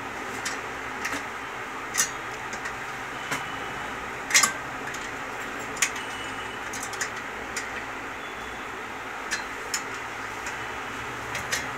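Scattered sharp metallic clicks and taps from a wrench tightening a nut on the treadle rod at the flywheel hub of an iron sewing-machine stand, over a steady background hum.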